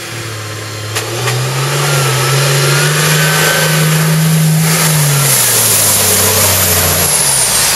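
Competition 4x4 truck's engine revving as it drives through a creek crossing, the pitch rising about a second and a half in, holding, then dropping back, with water spraying from the wheels. A high whine falls steadily in pitch near the end.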